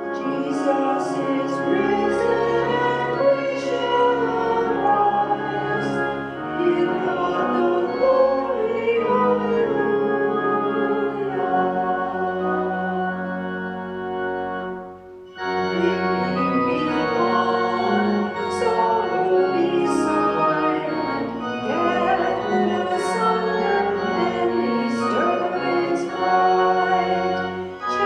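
A hymn on organ with voices singing, pausing briefly about halfway through before going on.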